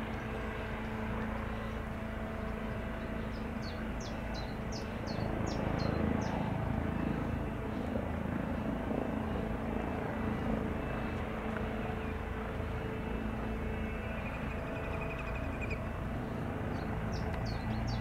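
Airbus Helicopters EC135 hover-taxiing low, its engines and rotors giving a steady drone with a few held tones. Quick high bird chirps come in twice, about four seconds in and near the end.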